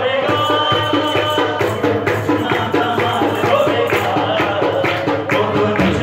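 Men singing a Punjabi Christian hymn (Masihi geet) into microphones, with a hand drum and jingling percussion keeping a quick, steady beat.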